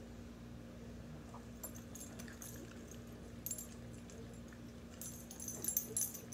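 Pugs eating ham from a person's fingers: wet chewing, lip-smacking and licking in short, sharp clicks, busiest and loudest in a cluster about five to six seconds in, with a light metallic jingle of collar ID tags. A steady low hum runs underneath.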